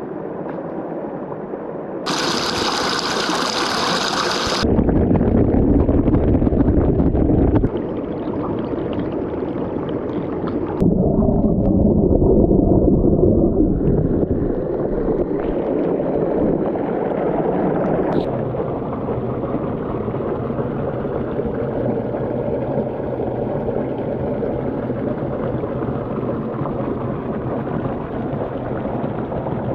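Valley stream water rushing over rocks, a loud steady gush that changes abruptly several times.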